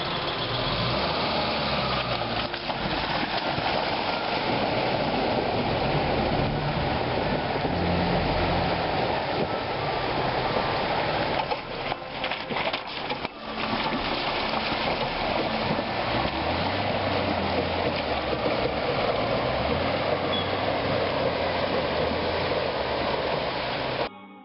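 Steady rushing of creek water with a small Suzuki four-wheel drive's engine running low underneath. The rush breaks up briefly about twelve seconds in, then carries on.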